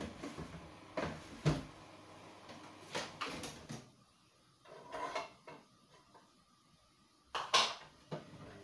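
Knocks and clatter of things being moved around and taken out of a low kitchen cabinet, a few separate knocks about a second in and around three seconds in, with the loudest knocks near the end.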